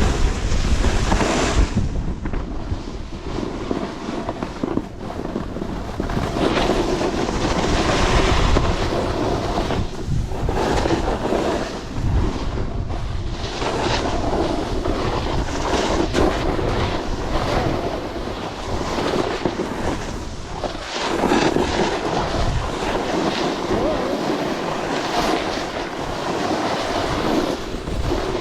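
Wind rushing over the microphone while skiing downhill, with the hiss of skis on snow swelling and fading every few seconds as the turns go by.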